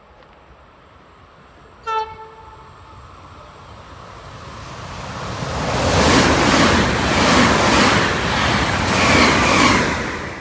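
Train sounding one short horn blast, then passing at speed. The noise builds, peaks with a rhythmic beat of wheels over the rail joints, and falls away near the end.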